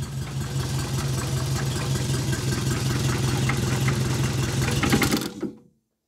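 1964 Renault Dauphine Gordini's four-cylinder engine running at idle, getting a little louder near the end, then cutting out suddenly: the engine stalls. It is a recurring stall that the owner suspects, without being sure, comes from the carburettor's accelerator pump.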